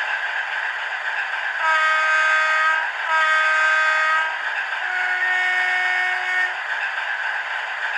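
DCC sound decoder in a 4mm-scale Class 60 model diesel locomotive sounding its two-tone horn through a small speaker: two blasts on the low note, then one longer blast on a higher note, over steady background noise.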